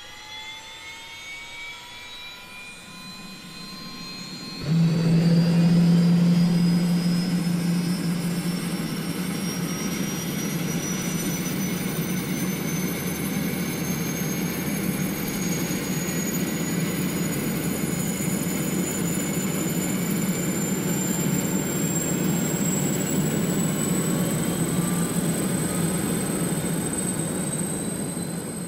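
DJI Phantom 4 Pro quadcopter's electric motors and propellers: a whine rising in pitch as they spin up, then a sudden much louder buzz about five seconds in as the drone lifts off. The buzz holds steady, its high whine creeping slowly upward as the drone climbs.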